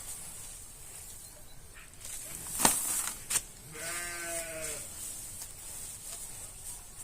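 A sheep bleating once, a wavering call of about a second, just after two sharp knocks about half a second apart.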